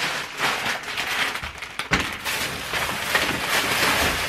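Dense close-up rustling and crackling handling noise that starts abruptly, with a sharper crack about two seconds in.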